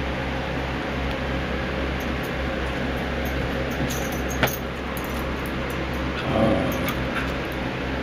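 Box fan running with a steady hum. About four and a half seconds in there is a sharp click, and about six and a half seconds in a Pembroke Welsh Corgi gives a short, low grumble.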